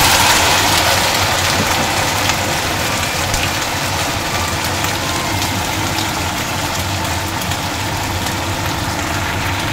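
Chilies, shallots, garlic and tomatoes sizzling after being tipped into hot frying oil. The loud sizzle starts suddenly and carries on steadily, easing a little, with a low steady hum underneath.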